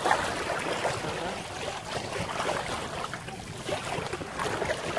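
Shallow sea water washing and lapping around people sitting in it at the water's edge: a steady wash with small scattered splashes.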